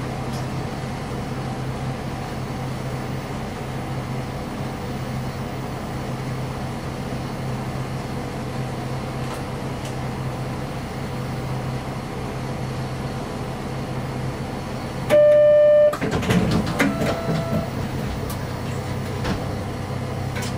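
KiHa 31 diesel railcar under way, its diesel engine giving a steady drone. About three-quarters of the way in, the train's horn sounds once, a single steady note of under a second and the loudest thing here, followed by a couple of seconds of clanking and short squeals.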